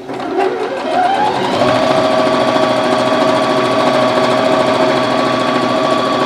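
Elna 450 electronic sewing machine top-stitching a fabric hem: the motor speeds up with a rising whine over the first second or so, then runs at a steady fast pace with rapid, even needle ticking.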